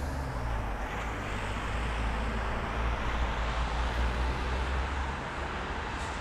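Road traffic: a vehicle passing along the street, its tyre and engine noise swelling to a peak about three seconds in and then easing off, over a low rumble that drops away near the end.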